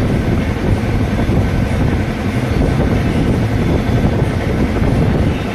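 Heavy lathe running steadily with a machined crane worm shaft turning in it: a continuous low mechanical rumble.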